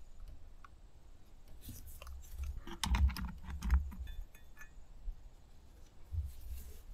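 Handling noise from a small two-stroke chainsaw being turned over by hand to repeat a spark test: light plastic clicks and rattles, with a couple of duller knocks a few seconds in.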